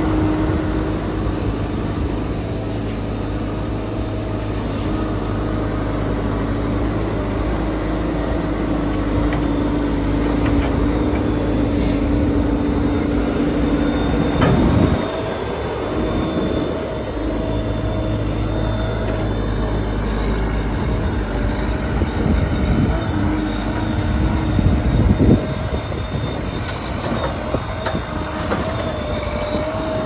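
JCB 214 backhoe's diesel engine running steadily. Its note drops out briefly about halfway through and shifts again near the end, and a thin high whine joins from about halfway.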